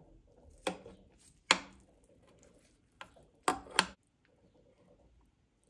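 Metal serving spoon clinking against a glass baking dish as it cuts into and scoops out a baked casserole: five sharp clinks over about four seconds, the last two close together.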